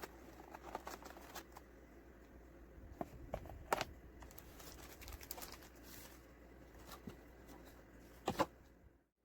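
Scattered light clicks and taps of objects being handled, over a faint steady hum, with the loudest knocks about a third of the way in and near the end; the sound cuts off abruptly just before the end.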